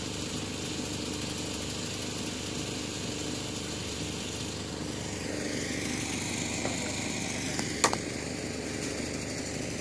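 A cricket bat cracks sharply against the ball about eight seconds in, just after a softer knock, over a steady engine-like hum; a rising and falling whine joins the hum from about halfway through.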